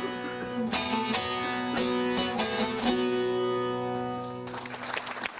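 Plucked string instrument playing the closing chords of a sung song, a few strums that ring and die away about four seconds in. Applause then starts near the end.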